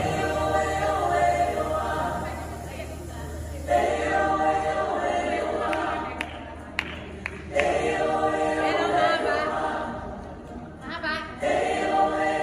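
A choir singing a worship song in sustained phrases, with short breaks between the phrases and a few sharp clicks in the middle break.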